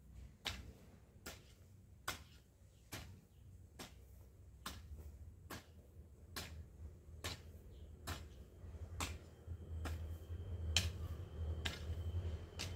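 Hoe blade striking tilled garden soil in a steady rhythm, a little more than one sharp chop a second. A low rumble builds up in the background during the second half.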